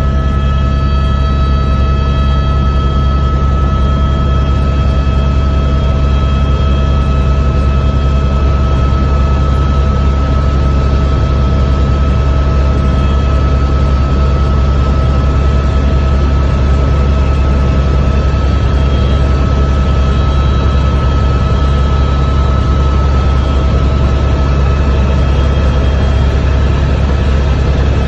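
Helicopter in flight: a steady, loud low drone from the rotor and engine, with a constant whine on top.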